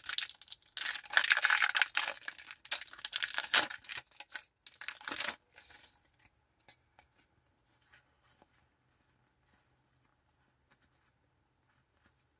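Pokémon booster pack's foil wrapper being torn open and crinkled for about five seconds, a stubborn wrapper that is slow to tear. Faint ticks of the cards being slid out and fanned by hand follow.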